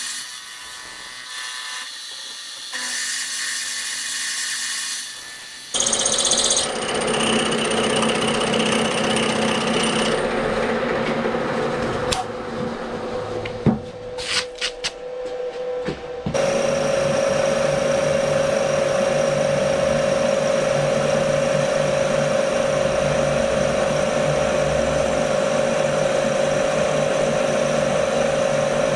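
Milling machine running, its end mill cutting a metal bar clamped in the vise. The cutting sound changes abruptly a couple of times, with a few sharp clicks and knocks midway, then settles into a steady, louder cut with a sustained ringing tone for the second half.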